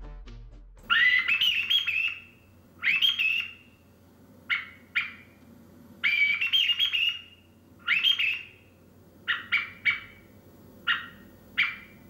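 Large wooden blackbird call whistle blown to imitate a blackbird: about a dozen whistled calls with pauses between them. Some are longer phrases rising in pitch; the rest are short, clipped notes.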